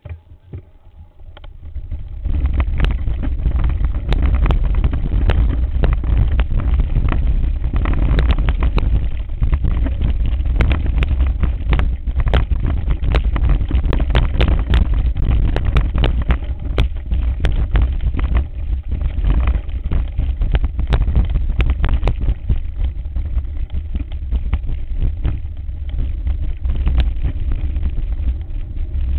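Heavy low rumble of wind and vibration on the camera's microphone, with frequent sharp knocks and rattles as the mountain bike rides over a rough, rocky trail. The rumble starts about two seconds in and stays steady.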